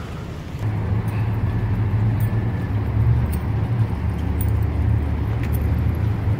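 Vehicle engine idling with a steady low hum that sets in about half a second in, with faint light clicks and jingles over it.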